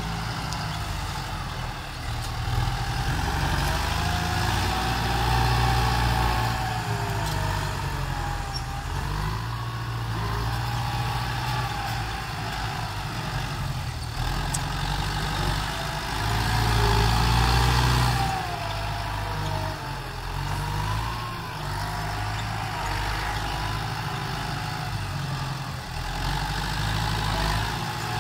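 Kubota farm tractor's diesel engine working under load while pushing and grading dirt, the engine note rising and falling as the load changes, with louder surges a few seconds in and again past the halfway point.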